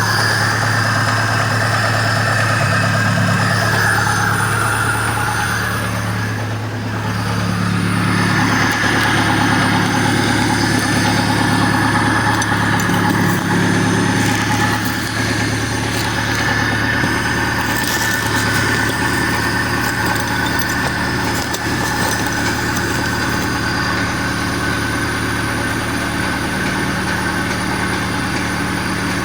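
VAZ-2101 four-cylinder petrol engine running steadily at idle with a knock, which turned out to be a worn piston pin knocking. The engine dips briefly about six and a half seconds in.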